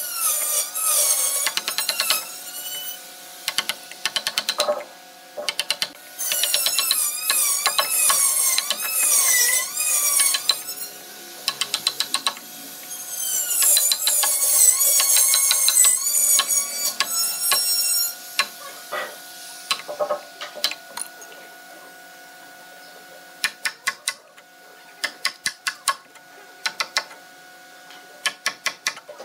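Hand chisel chopping and paring out a mortise in hardwood: clusters of quick, sharp taps in the second half. Earlier, high wavering squeals that warble up and down come and go for a few seconds at a time.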